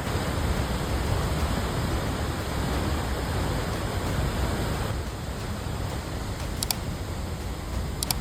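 Steady rushing noise of a fast-flowing river of mud, a little quieter after about five seconds, with two brief high clicks near the end.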